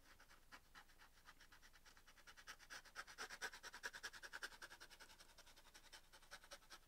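Charcoal pencil scratching across primed canvas in rapid short shading strokes, faint, growing a little louder for a couple of seconds midway.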